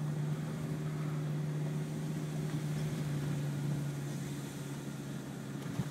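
Car driving slowly, heard from inside the cabin: a steady hum of engine and tyre noise.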